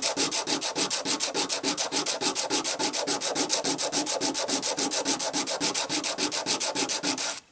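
A coin rubbed quickly back and forth on metal-grade sandpaper glued to a chipboard block: an even, scratchy rasp of about eight strokes a second that stops suddenly near the end. The coin's face is being ground level.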